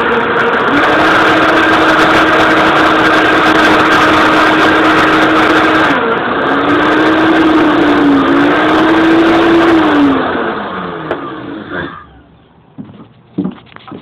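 Countertop blender motor running at full speed, blending a smoothie with ice cubes; its pitch dips and wavers about six seconds in, then it is switched off about ten seconds in and winds down over a couple of seconds. A few knocks follow near the end as the jar is handled.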